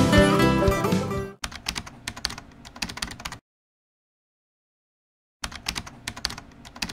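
Acoustic guitar music ending about a second in, then rapid keyboard-typing clicks for about two seconds, a gap of dead silence, and more typing clicks near the end: a typing sound effect.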